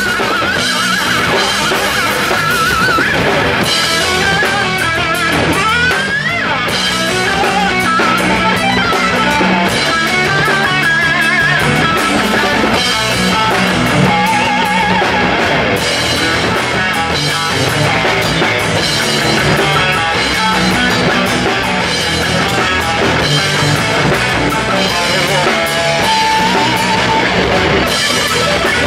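Rock band playing live: electric guitar with wavering, bent lead notes over a drum kit. A note slides upward about six seconds in.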